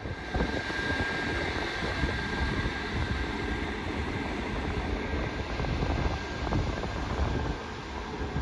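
SJ X2000 electric high-speed train pulling away along a station platform: a steady rumbling run of wheels and motors. A thin high whine sounds over it for the first few seconds and then fades.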